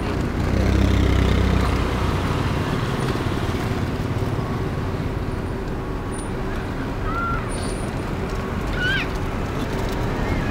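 Engine and road noise of a slowly moving car, a steady low hum that swells briefly about a second in.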